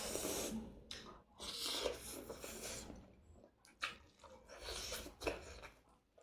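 A person eating close to the microphone: several noisy bursts of chewing, with a few sharp clicks between them.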